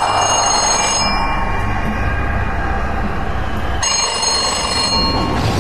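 Telephone ringing twice, each ring about a second long and the second coming about three seconds after the first, over a steady low background noise.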